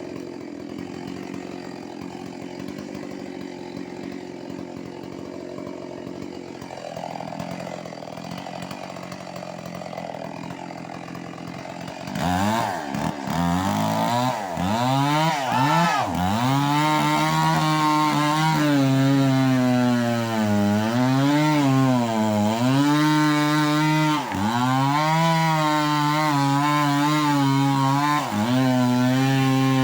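Stihl MS 381 two-stroke chainsaw running steadily at low speed, then about twelve seconds in opened up to full throttle and cutting wood. Its pitch dips and recovers again and again as the chain bogs in the cut.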